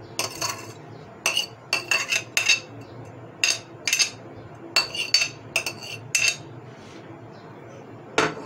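Metal spoon scraping and tapping against a ceramic plate, about a dozen short ringing clinks in quick clusters as chopped vegetables are pushed off into a bowl, then one more knock near the end.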